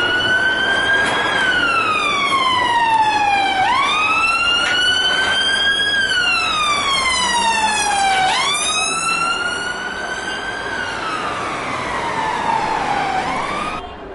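A siren wailing, its pitch rising and falling in slow sweeps of about four to five seconds, three times over, then cutting off suddenly near the end.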